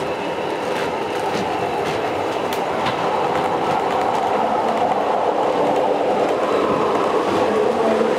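A 0 gauge model diesel locomotive and its freight wagons running past on the layout track: a steady rumble that grows slowly louder, with a few sharp clicks from the wheels crossing rail joints in the first few seconds.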